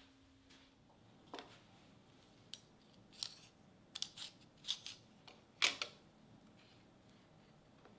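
Sliding bevel gauge, steel blade on a wooden stock, being handled and laid against a plywood board: a scatter of light clicks and taps, about a dozen, the loudest about two-thirds of the way through.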